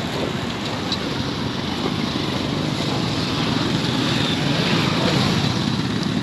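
Steady road traffic noise from passing vehicles, growing a little louder in the second half.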